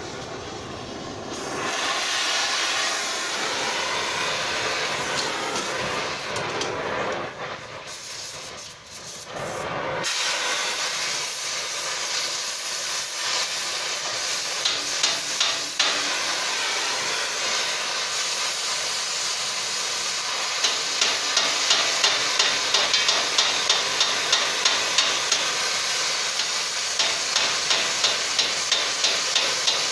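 Oxy-fuel cutting torch hissing steadily as its flame heats a wrapped steel collar. The hiss drops back about seven seconds in and returns louder about ten seconds in. In the second half, short sharp taps come about twice a second.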